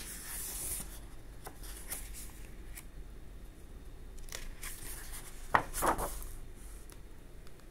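Paper pages of an old encyclopedia rustling as they are handled and turned, with a louder page flip about five and a half seconds in.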